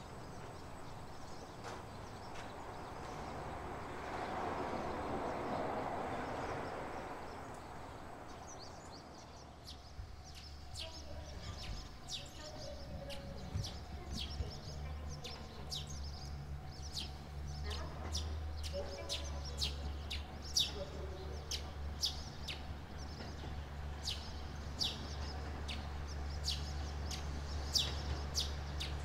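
Small birds chirping, many short high chirps several times a second, over a steady low hum. In the first few seconds a broad rushing noise swells and fades away.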